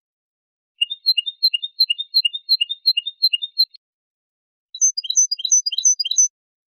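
European goldfinch singing two phrases of quickly repeated two-note figures, separated by a pause of about a second. The second, shorter phrase is pitched higher than the first.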